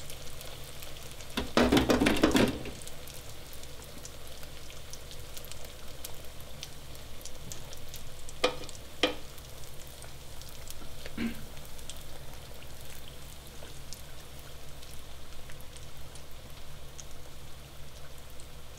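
Spring rolls deep-frying in very hot oil, a steady crackling sizzle. A louder burst comes about two seconds in, and a few short knocks follow later.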